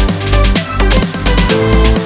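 Electronic background music with a heavy bass line and a fast, steady beat.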